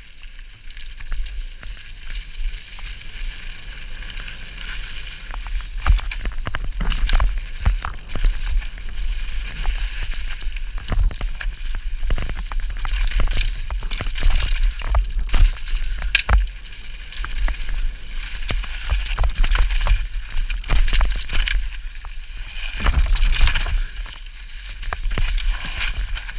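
Enduro mountain bike descending a dusty, rocky trail, heard from a camera mounted on the rider: tyres rolling and skidding over dirt, with frequent knocks and rattles from the bike over bumps and a low rumble of wind and vibration. It is quieter for the first few seconds as the bike sets off, then louder once it is moving fast.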